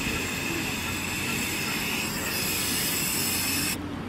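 Gas hissing steadily from an LPG cylinder's valve under a smothering blanket, the fire already starved of oxygen; it cuts off suddenly near the end as the valve is shut.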